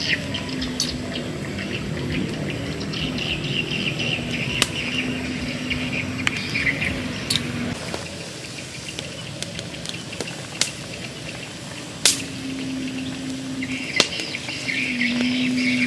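Frog curry simmering in a wok over a wood fire: a steady bubbling hiss with scattered sharp pops, over a chirping outdoor background.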